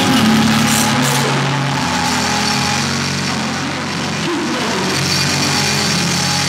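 Drum kit played live, a dense wash of cymbals and drums over a sustained low chord from the band.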